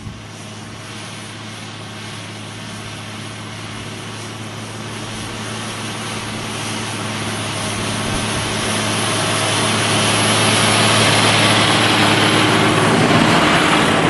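John Deere 6630 tractor's diesel engine pulling a plough, approaching steadily: a constant low engine hum under a broad rushing noise, growing louder over about ten seconds and then holding loud as the tractor passes close.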